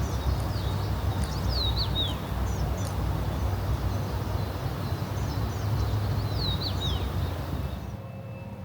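A songbird sings a short phrase of quick, downward-sweeping chirps, then repeats it a few seconds later, over steady low background noise. Near the end the background cuts away, and a vehicle's reversing beeper starts its regular beeps.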